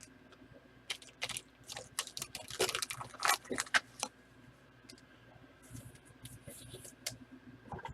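A quick, irregular run of light clicks and rustles, densest between about one and four seconds in, with a few fainter ones near the end.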